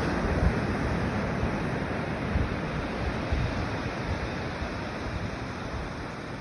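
Steady ocean surf with wind buffeting the microphone in gusts.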